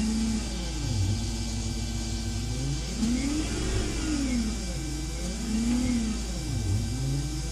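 Siemens electric drive motor of an EV-converted BMW 840Ci revved with no load, its whine rising and falling in pitch about four times as the throttle is pressed and let off.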